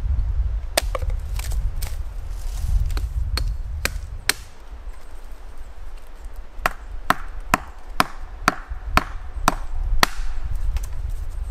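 Small hatchet chopping a dead branch laid on a mossy log: a series of sharp chops of steel into wood, a few spaced strikes at first, then a steady run of about two chops a second in the second half.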